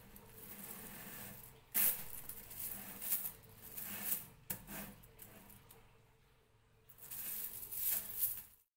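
A sheet of riveted chainmail being handled, its small metal rings jingling and clinking against each other in a series of bursts. There is a quieter lull a little past halfway, then more clinking that stops just before the end.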